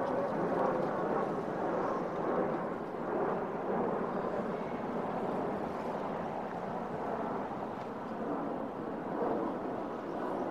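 Steady city street ambience: an even hum of road traffic, with no distinct events standing out.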